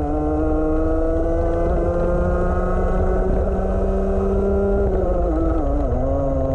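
Rotax 125 Max Evo single-cylinder two-stroke kart engine at full throttle, its pitch climbing steadily for about five seconds as the kart accelerates, then dropping quickly as the throttle is lifted for braking, and settling again near the end.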